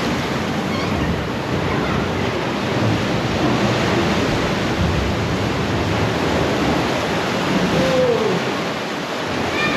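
Ocean waves surging and washing through a sea cave: a steady, loud rush of surf.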